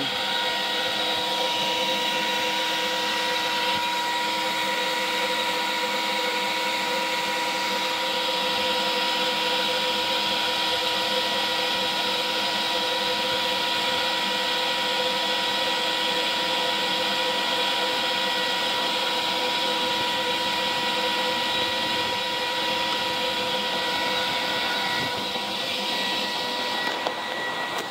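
Electric air blower of an Air-Dock inflatable boat lift running steadily, a constant whine over a rushing hiss, as it pumps air into the lift's airbags to raise the boat out of the water.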